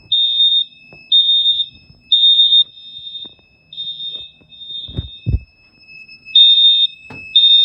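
Edwards mini fire alarm horns sounding in alarm: high-pitched beeps of about half a second each in a stop-start pattern, with louder beeps in a group of three and fainter beeps out of step with them, two horns no longer synchronized. A couple of low thumps about five seconds in.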